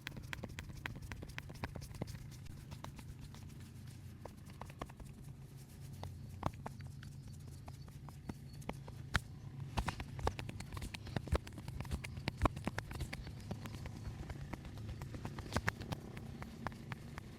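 Massage sounds: hands tapping, patting and working on the head and back make a string of sharp, irregular taps and clicks, several a second, over a steady low hum.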